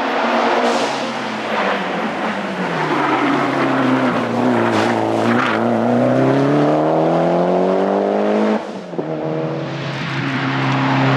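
Mitsubishi Lancer Evolution X's turbocharged 2.0-litre four-cylinder engine driven hard. The revs fall for about four seconds, then climb steadily, with a brief break about eight and a half seconds in, like a gear change, before it pulls on.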